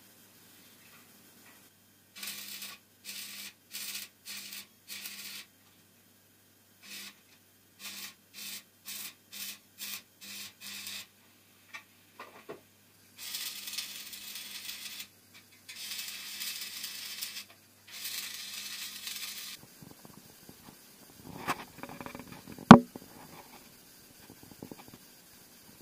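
Electric arc welding on a square steel tube frame: a string of short bursts about a second apart, then three longer welding runs of one to two seconds each. Near the end, a few knocks and one sharp, loud knock.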